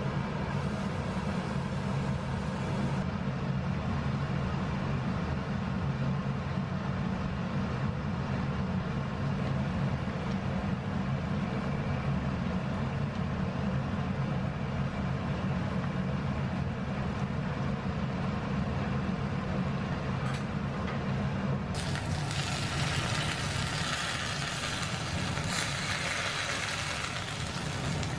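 Steady low mechanical hum, like a motor or fan running. About three-quarters of the way through, a loud, even hiss suddenly joins it.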